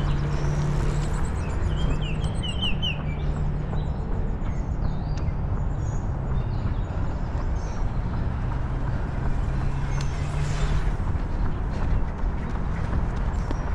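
Steady rumble of road traffic, with a small bird chirping a quick run of short notes about two seconds in.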